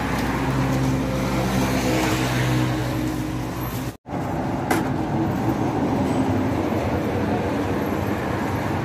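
Street traffic with a steady engine hum for the first few seconds. The sound cuts out for an instant about four seconds in, then road noise goes on.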